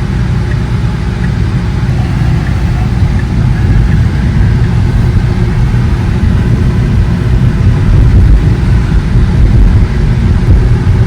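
Steady low rumble of road and tyre noise inside the cabin of a moving Tesla Model 3, an electric car with no engine sound, getting a little louder past the middle.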